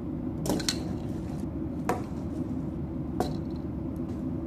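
LEGO Technic airliner model's plastic landing-gear wheels touching down on a wooden tabletop: three short clacks about a second and a half apart, over a steady low hum.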